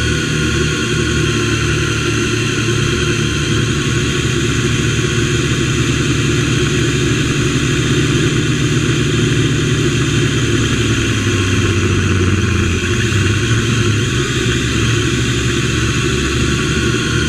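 MJX X101 quadcopter's motors and propellers running in flight, heard from the GoPro mounted on the drone itself: a loud, steady whine of several pitches over a low hum. The low hum drops slightly in pitch about ten seconds in as the motor speed changes.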